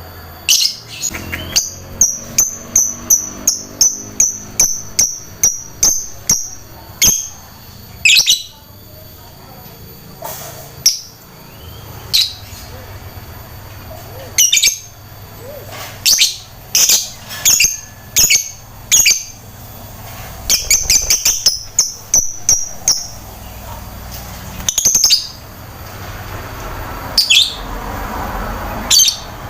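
Lovebird singing: a string of sharp, shrill chirps, broken by two fast runs of rapidly repeated notes, one a couple of seconds in and another about two-thirds of the way through.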